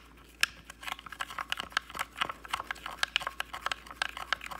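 Wooden chopstick stirring salt and water in a plastic tray compartment: quick, irregular ticks and scrapes of wood against plastic, several a second.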